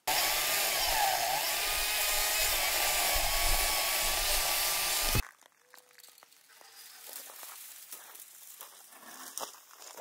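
Atlas 40V battery-powered electric chainsaw running at full speed and cutting palo verde wood. Its motor whine dips in pitch about a second in as the chain bites, then recovers, and the sound cuts off abruptly after about five seconds. Quieter rustling and crackling of the tree's thin branches follows.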